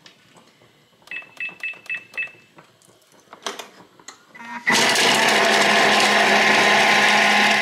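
A Thermomix gives a quick run of about five short beeps as it is set, then its motor starts suddenly about three seconds later and runs with a steady whir at speed 5, chopping a quartered onion and garlic cloves.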